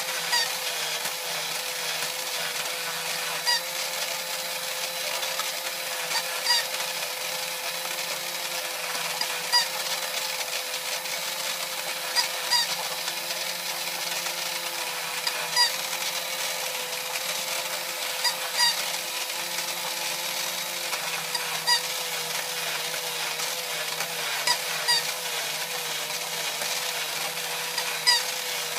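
Vintage battery-operated tin Barber Bear toy running: its small electric motor and gears whir steadily, with a brief, louder tick about every three seconds as the mechanism cycles.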